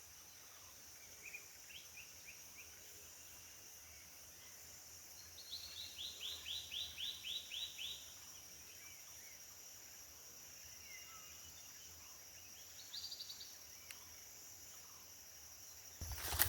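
Forest birds calling over a steady high insect drone, with scattered chirps early on and a fast run of about ten quick repeated notes from about five to eight seconds in, then a short quick burst of notes near the end.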